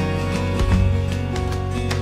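Gentle instrumental background music led by plucked acoustic guitar.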